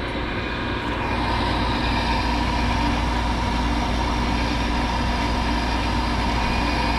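Lennox condensing gas furnace running just after start-up: a steady motor hum with a constant higher tone held throughout.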